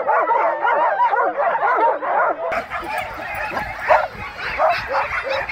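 Several canicross dogs yelping, yipping and whining excitedly at once, many short high calls overlapping: the clamour of dogs eager to run at a race start. A low rumble joins about halfway through.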